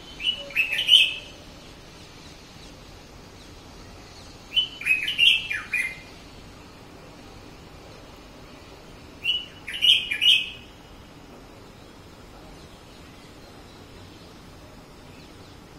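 Red-whiskered bulbul singing three short phrases of quick rising and falling notes, each about a second long: one at the start, one about five seconds in, one about ten seconds in.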